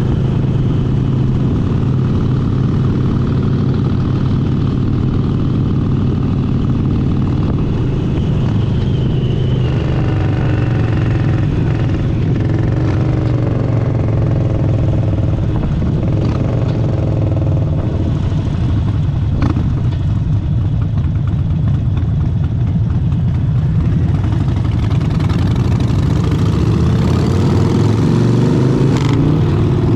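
Harley-Davidson Sportster 72's air-cooled V-twin engine running under way, its pitch shifting up and down through the middle and getting louder near the end as it picks up speed.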